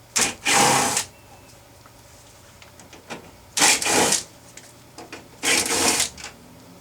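A small socket ratchet on a 5.5 mm socket clicking in short strokes as it backs out the speaker's mounting bolts. There are about four bursts of clicking, each roughly half a second long, with pauses between them.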